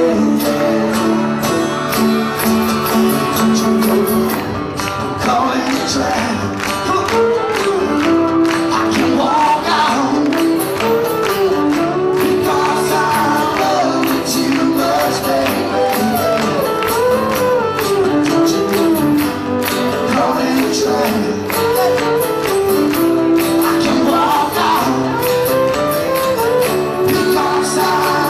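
Live country music played on several acoustic guitars, strummed steadily, with a wavering melody line carried over the strumming.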